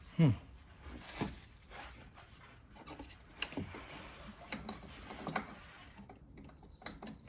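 Hard parts knocking, clicking and rubbing as a turbo inlet pipe is handled and pushed at its fitting without seating. There is one sharp knock about a quarter second in, with a short falling ring, then lighter, irregular knocks and scrapes.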